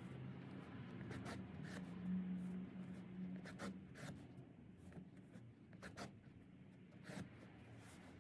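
Needle and twine being drawn through the edge of a wool carpet during hand-sewing: scattered short scratchy rasps as the cord is pulled through the weave. A low hum sits underneath, loudest a couple of seconds in.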